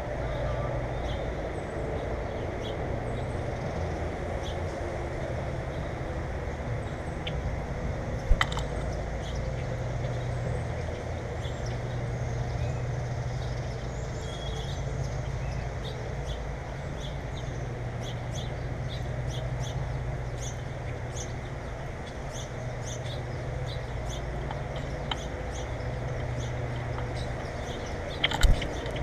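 Many small birds chirping, short high calls scattered throughout, over a steady low rumble. Two sharp clicks, one about eight seconds in and one near the end, stand out as the loudest sounds.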